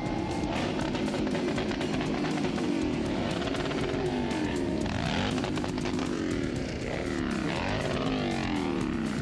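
Motorcycle engines revving, the pitch repeatedly climbing and then falling back, with music playing underneath.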